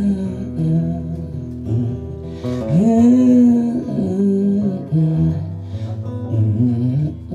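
Acoustic guitar played with a man singing long wordless notes over it; one long rising-and-falling vocal phrase comes about three seconds in.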